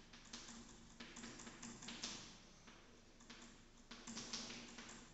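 Chalk writing on a blackboard: faint, irregular short scratchy strokes and taps, a few each second.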